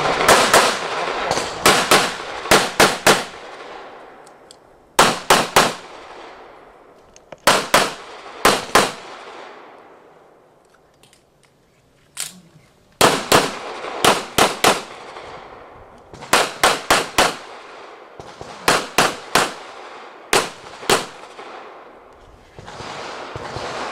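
Handgun fired in rapid strings, mostly pairs and short groups of sharp cracks, each followed by a brief echo. The groups come every couple of seconds, with a longer break about ten seconds in, the pattern of a shooter engaging targets through a practical-shooting stage.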